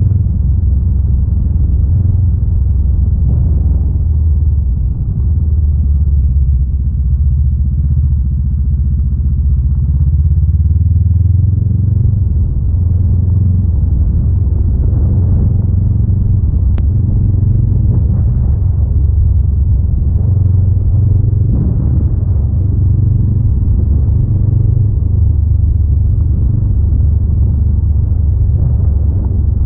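Honda Rebel 500's parallel-twin engine running steadily as the motorcycle is ridden along a dirt road, with the engine note rising briefly about a third of the way in.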